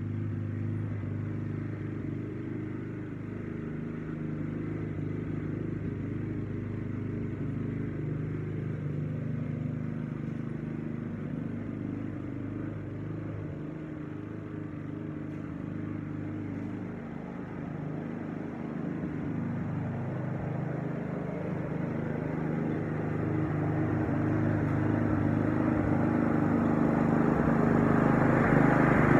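Honda walk-behind lawn mower's single-cylinder four-stroke engine running steadily under mowing load, growing louder over the last several seconds as the mower comes closer.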